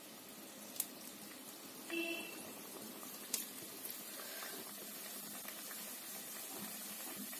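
Chakli (spirals of rice-flour dough) deep-frying in hot oil in an iron kadai: a faint, steady sizzle that grows slightly louder. There are two sharp clicks, under a second in and about three seconds in, and a brief tonal sound about two seconds in.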